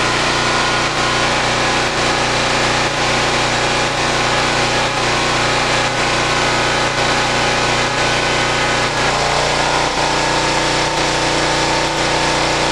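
Kohler 8RESV 8 kW standby generator's propane-fuelled engine running steadily. About nine seconds in its note shifts slightly lower as electrical load comes on.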